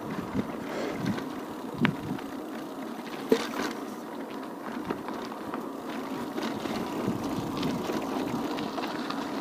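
Bicycle rolling over a rough path: steady tyre and wind noise with scattered rattling knocks, the sharpest about two seconds and three and a half seconds in.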